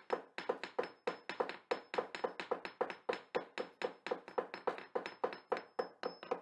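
A fast, even rhythm of sharp percussive knocks, about four a second, each ringing briefly: a percussion intro beat.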